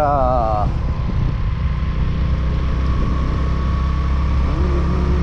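Motorcycle engine running steadily at road speed, mixed with wind and road noise on the microphone. A voice trails off in the first second.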